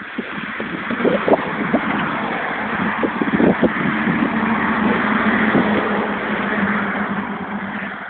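A motor vehicle running, a noisy hiss over a steady low hum that swells after the start and fades near the end.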